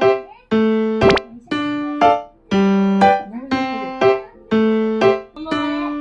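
Background music: a keyboard melody of clear, separate notes, a new note about every half second.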